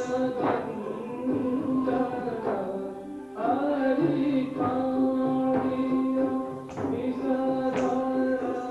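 Odissi classical dance music: a sung melody over a steady drone, with occasional sharp drum strokes.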